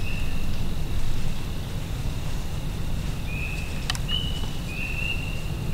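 Insects calling in the evening swamp: short buzzy chirps at the same high pitch, repeated several times and coming closer together near the end, over a steady low rumble. A single sharp click sounds about four seconds in.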